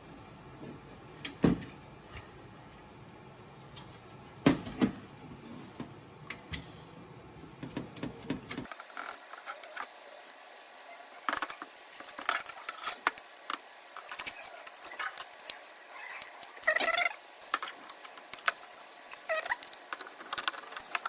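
Scattered metal clicks, clinks and rattles from a T15 Torx screwdriver undoing screws and from the PCI riser cage of an HP ProLiant DL380p Gen8 server being handled. The sounds come more thickly in the second half, with a couple of short squeaks near the end.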